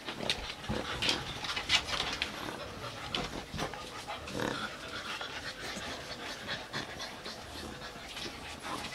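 Shar-Pei puppies panting while they play-wrestle and mouth each other's faces, with many short clicking and smacking mouth noises and a few brief whines.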